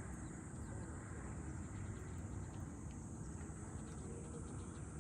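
Steady high-pitched chorus of insects over a continuous low rumble.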